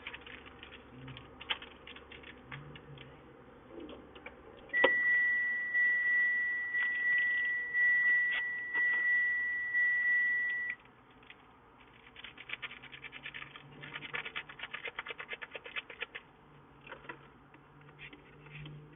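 A steady, high electronic beep held for about six seconds, starting about five seconds in and cutting off suddenly. Before and after it come quiet scattered clicks and rustles, thickest a few seconds after the beep, from sugar packets being handled and emptied into a coffee cup.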